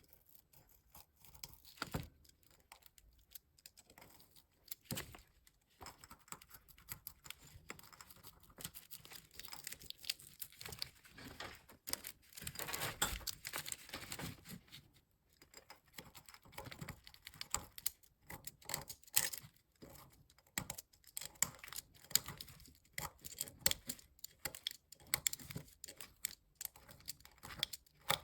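Light irregular clicks and taps of small parts being handled and worked by hand, with a longer stretch of scraping about twelve to fifteen seconds in.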